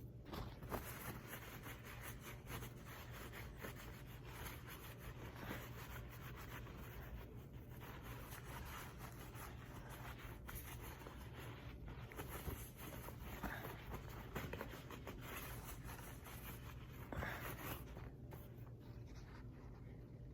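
Faint, steady rubbing of a paper towel wiping a stainless steel revolver cylinder dry, in many quick short strokes.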